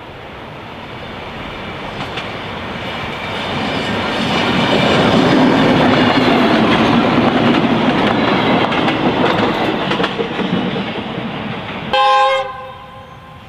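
A vintage Victorian Railways diesel-electric railmotor (DERM) set runs past close by, its engine and wheels on the track swelling to a peak about halfway through and then fading away. Near the end, a railmotor's horn gives a short blast of about half a second.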